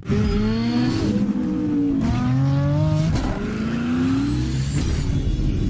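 An engine revving as a sound effect for a logo sting, its pitch climbing, dropping back and climbing again several times.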